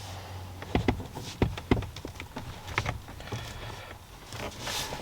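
Scattered light clicks and taps of a flat-blade screwdriver against the plastic of a Peugeot 206 steering wheel, probing for the airbag's retaining clip, which has not yet released.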